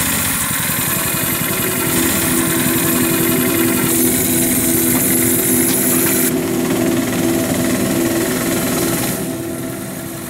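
Small engine of a motorized couch car running steadily with a rapid, even pulsing, fading away over the last couple of seconds.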